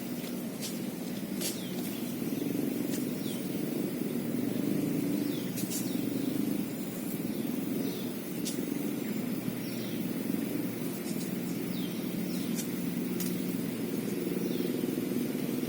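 Outdoor ambience: a steady low rumble, with a few short bird chirps and scattered light clicks over it.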